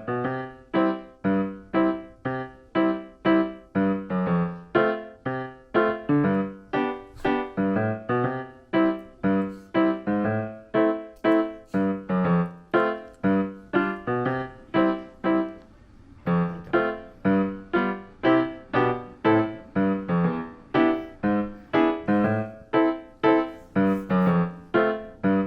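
Background piano music: a steady run of plucky notes, about two or three a second, with a short lull about sixteen seconds in.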